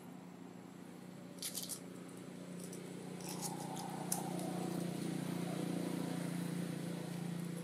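Dry leaves crackling in short bursts as a baby macaque clambers and walks over leaf litter, with one sharp click about four seconds in. A low steady hum underneath grows louder from about a third of the way through.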